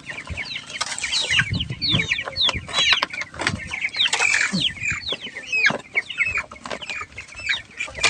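A flock of young broiler chickens calling: a dense run of short, high peeps that fall in pitch, mixed with clucks and a few scratchy clicks.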